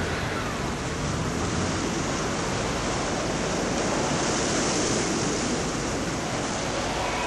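Steady rush of wind and sea surf, with wind buffeting the microphone, swelling slightly about halfway through.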